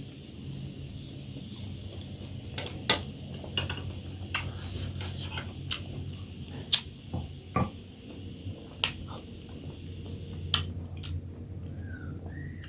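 Eating utensils clinking against a dish every second or so, in separate sharp clicks over a steady low hum.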